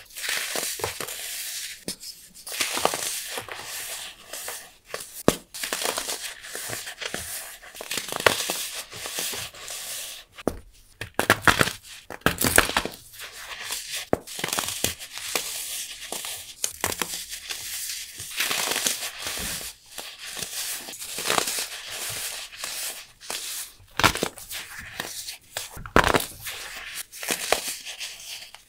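Bricks of pure baking soda crumbled and crushed between the fingers: a sandy, crispy crunching of irregular crackles, with louder sharp crunches every few seconds as chunks break apart.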